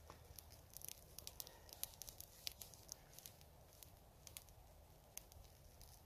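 A freshly lit bundle of dry twigs catching fire, with faint, sharp, irregular crackles and snaps.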